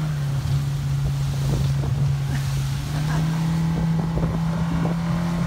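50 hp outboard motor driving an inflatable boat at speed through choppy sea, running steadily, its pitch rising slightly about three seconds in. Wind buffets the microphone throughout.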